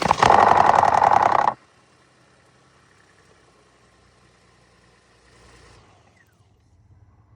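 Ford F-150 engine just after starting, running loud with a rapid metallic rattle: the timing chain rattle the truck is known for. It cuts off suddenly about a second and a half in, leaving a faint low hum.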